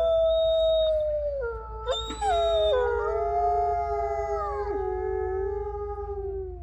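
A pack of wolves howling in chorus: several long howls overlap at different pitches, each holding and then sliding downward, and the chorus fades out near the end.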